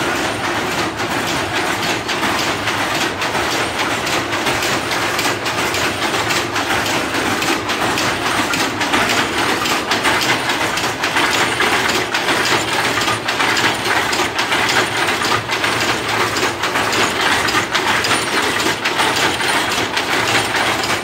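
Power looms weaving prayer mats, running with a loud, steady, fast mechanical clatter.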